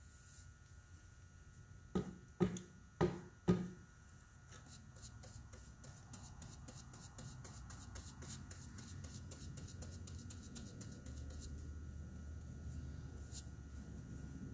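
A wooden-handled paintbrush knocked four times in quick succession against the rim of a metal polyurethane can, then a rapid run of light, scratchy bristle strokes as the brush lays finish onto a wooden cabinet door.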